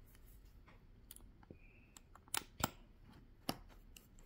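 Small sharp metallic clicks and taps as tiny bottom-case screws are set into a MacBook Air's aluminium case with a pentalobe screwdriver, with three louder clicks in the second half.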